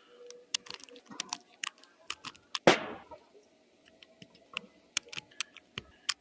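Sharp metallic clicks and clacks from a .22 LR semi-auto rifle being handled and its action worked, at irregular intervals, with one louder clack that rings briefly about two and a half seconds in.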